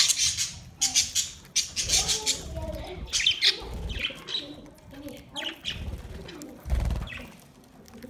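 Budgerigars fluttering their wings as they fly in and land, mixed with rustling and short, scattered chirps from the flock, and a dull low thump about seven seconds in.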